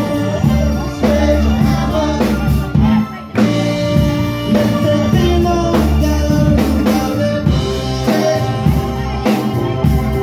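Live band playing amplified rock music: drum kit, guitar and horns, with a voice singing over it.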